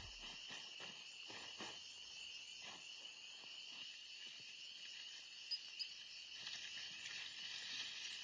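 Crickets chirring steadily in a night-time insect chorus, with faint soft rustles now and then.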